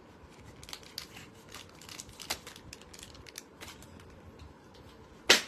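Paper rustling and small scattered clicks from handling papers and a paper shopping bag, with one loud sharp knock about five seconds in.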